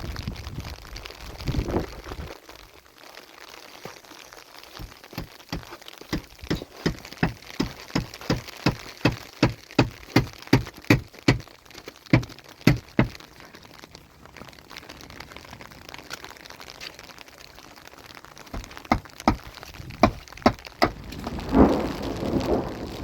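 A run of sharp crunching knocks, about two a second, lasting several seconds, then a few more and a louder, longer crunch near the end, over a steady noisy background.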